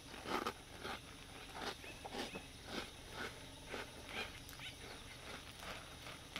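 Close-up chewing of a mouthful of Froot Loops Pops puffed cereal, a run of short crunches about two a second.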